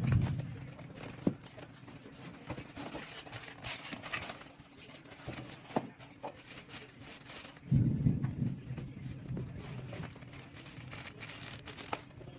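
Irregular rustling and crinkling with scattered sharp clicks, typical of plastic or packaging being handled. Two brief low thuds come at the start and about eight seconds in. No vacuum motor is running.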